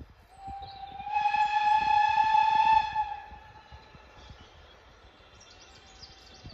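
Steam locomotive whistle giving one long blast of about two and a half seconds, rising slightly in pitch as it opens, then fading away. Faint birdsong follows near the end.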